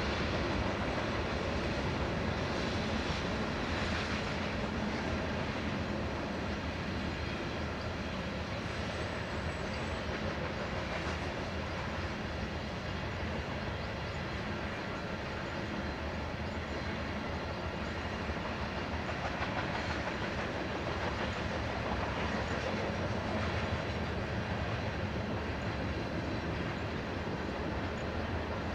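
A long freight train's cars, mostly tank cars, rolling steadily past on the rails: a continuous sound of wheels on track.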